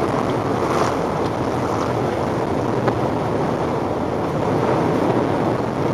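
Car ploughing through deep floodwater, heard from inside the cabin: a steady rushing and splashing of water against the wheels and underbody over the engine, swelling a little in the second half.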